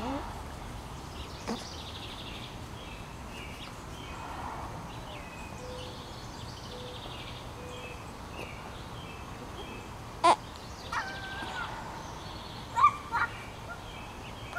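Birds calling in the background over steady outdoor noise, with a single sharp knock about ten seconds in and two short louder sounds near the end.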